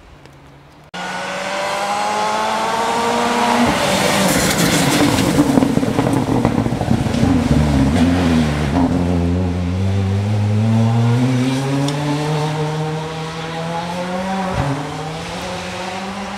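Rally car's engine driven hard on a gravel stage, cutting in abruptly about a second in. Its pitch climbs as it approaches, drops as it passes about eight seconds in, then climbs steadily again as it accelerates away.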